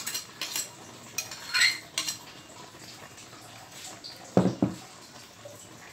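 Metal spoon clinking and scraping against a wok as fried potato slices are tipped in, several sharp clinks in the first two seconds. About four and a half seconds in there is a louder, duller knock of metal cookware.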